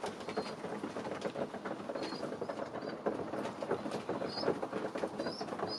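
Flock of pigeons pecking grain from a wooden trough feeder: a dense, fast clatter of beak taps. A few short high-pitched chirps come in around the middle and near the end.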